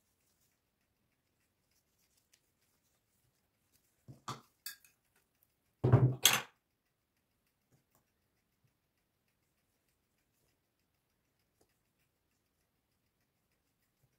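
Brief kitchen clatter of dishes and utensils: a few light knocks a little after four seconds, then a louder cluster of clattering around six seconds.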